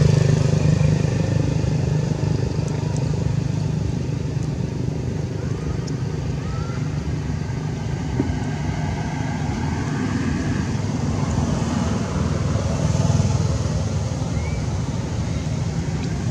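Steady low engine hum, as of motor vehicles running nearby, with a couple of faint short rising squeaks.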